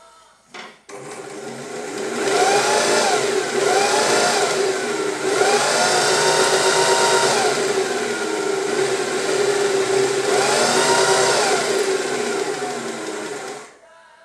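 Freshly serviced Adler 1217 industrial sewing machine sewing a test seam through a fabric strip. It starts about a second in, and its motor whine rises and falls in speed several times as it stitches. It stops shortly before the end.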